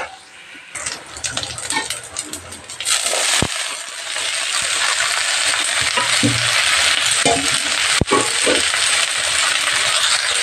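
A spatula clinks and scrapes in a pan of vegetables. About three seconds in, a steady sizzle starts as chopped broad beans fry in oil in an aluminium kadai, with a couple of sharp spatula knocks against the pan.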